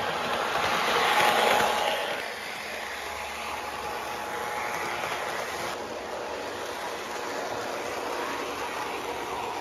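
Lionel O-gauge model trains running around the track, a steady running noise that swells, loudest about a second in as a locomotive passes close by.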